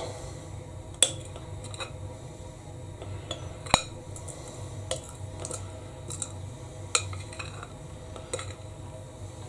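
Metal spoon scraping thick banana bread batter out of a glass mixing bowl, with irregular clinks of spoon on glass; the sharpest clink comes a little over a third of the way in.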